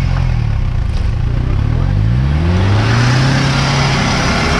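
Off-road vehicle's engine revving up about two seconds in and held at high revs, with a loud rushing noise building alongside.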